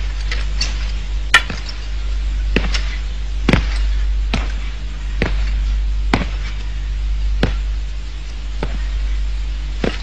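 Fight sound effects of blows: about a dozen sharp hits at irregular intervals, the loudest a little over a second in, over a steady low hum.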